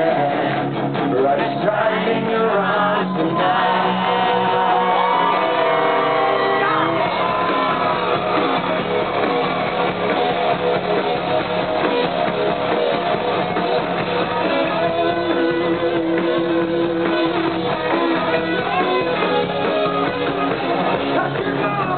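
Live rock band playing, with a male lead vocal and electric guitar, heard loud in a large hall. About seven seconds in, the heavier low end of bass and drums comes in under the singing.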